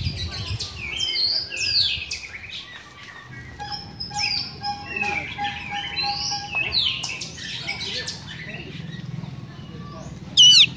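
Oriental magpie-robin singing a varied song of sweeping whistles and quick chirps, with a loud run of rapid up-and-down notes near the end.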